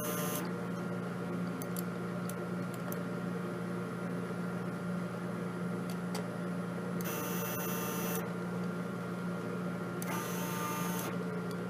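NEMA 34 stepper motors of a homebuilt CNC whining in short jogs of about a second each, three times: one just ending at the start, then two more about 7 and 10 seconds in. A steady electrical hum runs underneath.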